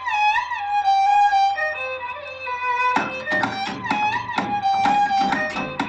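Music: a single sustained melody line, joined about three seconds in by a plucked accompaniment with a steady beat.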